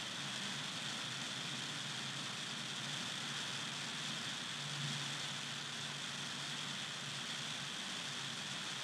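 Steady background hiss with a faint low hum underneath, which rises slightly about five seconds in; no distinct events.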